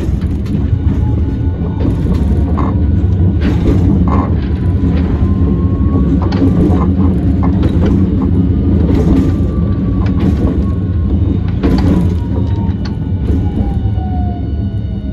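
Onboard running sound of a Hiroshima Electric Railway 1000-series Green mover LEX low-floor tram: a steady rumble of the wheels on the rails with scattered clacks. The traction motor's whine rises about six seconds in, then falls steadily in pitch through the second half as the tram slows.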